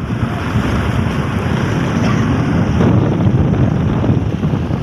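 Wind buffeting the microphone of a moving motorcycle: a steady loud rumble of wind and riding noise.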